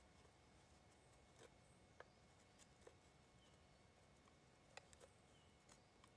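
Faint, irregular clicks of a carbon-steel bushcraft knife tip cutting into a green-wood spoon blank, a few small cuts a second apart, over near silence.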